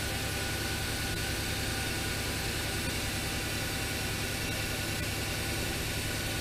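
Steady low hum with an even hiss from a powered-up Fadal VMC 6030 CNC vertical machining centre standing still, with no cutting and no sudden sounds.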